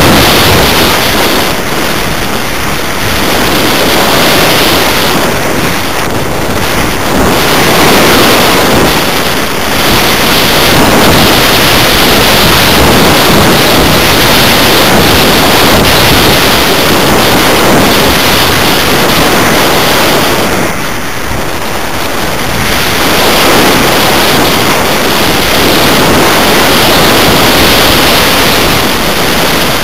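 Loud rushing of airflow over the onboard camera's microphone on a 1/6 scale BAC IV model glider in flight. The rush is steady, easing briefly a few times as the glider banks and changes speed.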